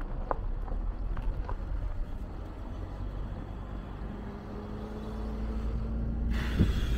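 A motor engine's steady hum grows louder from about four seconds in, over a low outdoor rumble with a few light clicks early on.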